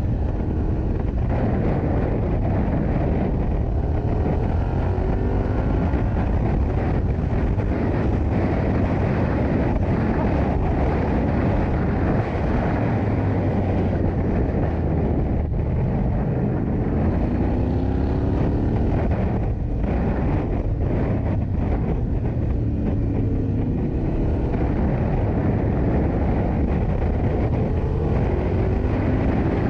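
Yamaha Ténéré 700's 689 cc parallel-twin engine running under way, its pitch climbing and dropping again several times as the motorcycle accelerates through the gears.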